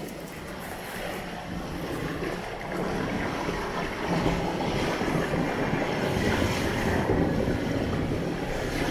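River water swirling and gurgling in a whirlpool as it is sucked down into a pipe, with wind rumbling on the microphone; it gets louder about halfway through.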